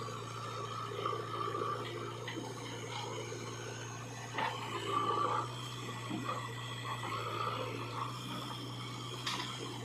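Diesel engine of heavy earthmoving machinery running steadily, rising slightly in speed about halfway through, with clattering and two sharp knocks over it.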